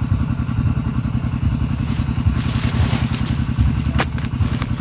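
A small engine running steadily close by, with a short rustling crackle about two and a half seconds in.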